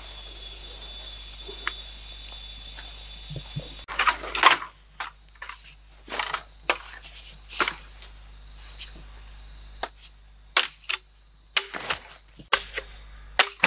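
Machete chopping a green bamboo pole: a run of sharp, irregular strikes starting about four seconds in. Before them, a steady high thin tone.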